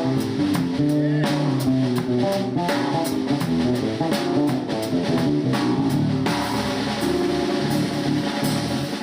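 Instrumental jazz-style band music with a drum kit keeping a steady beat, plucked guitar or bass lines and sustained pitched chords.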